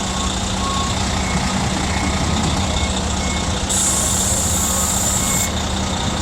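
Steady street traffic noise with a low hum, faint short beeps at two pitches repeating on and off, and a hiss lasting about two seconds near the middle.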